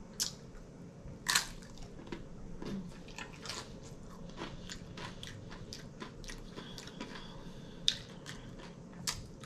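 Close-up crunching and chewing of tortilla chips loaded with taco salad: a steady run of crisp crunches, with louder bites about a second in and near the end.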